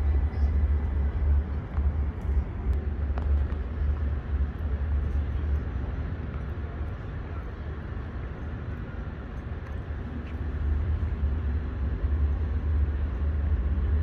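Outdoor waterfront ambience at night: a steady, uneven low rumble that is louder at first, dips through the middle and swells again near the end.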